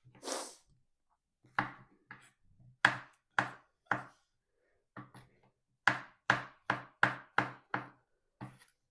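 Knife cutting mushrooms on a chopping board: a brief rustle, then a dozen or so separate chops in two runs, the second run quicker.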